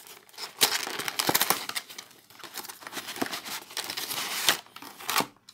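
A trading-card deck box and its plastic packaging being opened and handled: crinkling and rustling with many small clicks, loudest about a second in and again near the end.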